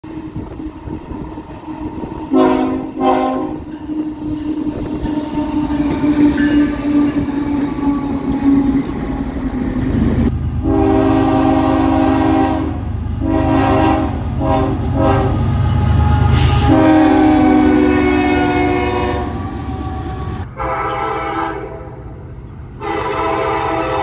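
Diesel freight locomotive horns sounding a series of blasts as trains pass: two short blasts a couple of seconds in, then a run of long and short blasts over a deep engine rumble as a locomotive goes by, and more horn near the end.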